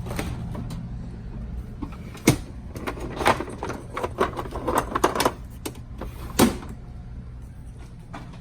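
Kitchen handling noises as eggs are fetched: a sharp knock about two seconds in, a run of clicks and taps, and another knock near the end, over a steady low hum.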